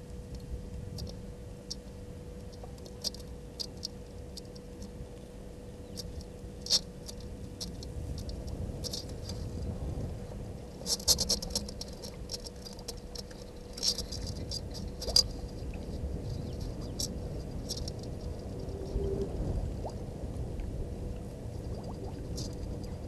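Outdoor bush ambience: a steady low rumble with a faint constant hum, and scattered sharp ticks and clicks, a few louder ones near the middle.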